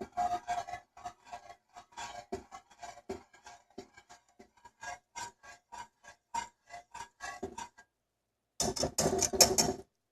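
Spoon stirring thick cheese sauce in a pot, scraping and clicking against the pot a few times a second. After a short pause near the end comes a louder, denser scraping for about a second.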